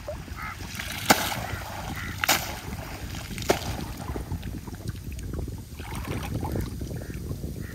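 People wading through knee-deep seawater: water sloshing and splashing around their legs, with wind on the microphone. Three sharp knocks come a little over a second apart in the first half.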